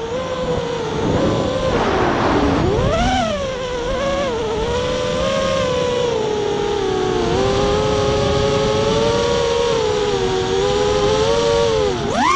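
FPV racing quadcopter's brushless motors and propellers whining, heard from its onboard camera, the pitch rising and falling with the throttle. There is a brief rush of noise about two seconds in, and the pitch climbs steeply near the end.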